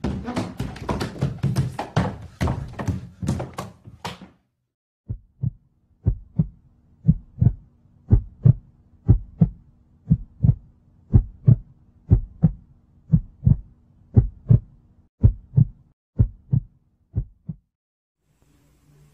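About four seconds of loud, jumbled banging and commotion. Then comes a heartbeat sound effect: paired thumps about once a second, over a faint steady hum, stopping shortly before the end.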